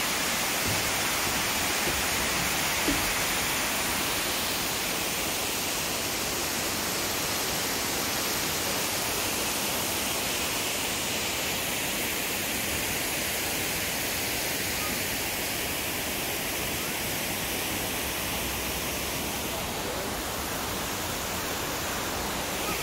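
Waterfall rushing steadily: an even hiss of falling water that holds without change.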